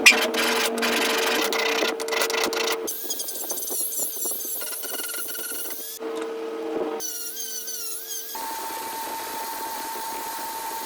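Short spliced-together bursts of power-tool workshop sound: a motor running with a steady hum and rapid clicks in the first three seconds, then whining tones that wander in pitch, changing abruptly at each cut.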